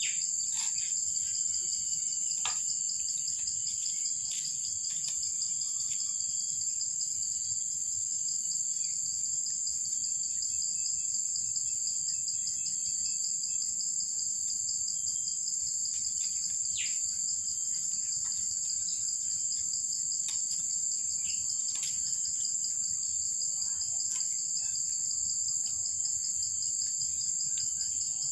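A steady, high-pitched chorus of insects, with a few faint short chirps and small ticks now and then.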